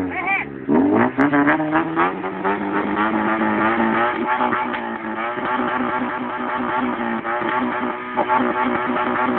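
Modified car's engine heard at the exhaust tailpipe, revving up in the first couple of seconds and then held at a steady raised rpm with a rough, pulsing exhaust note, as for an exhaust sound-pressure measurement.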